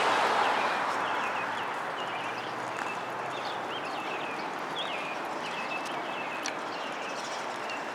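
Small birds chirping repeatedly over steady street noise, while a passing vehicle fades away during the first couple of seconds.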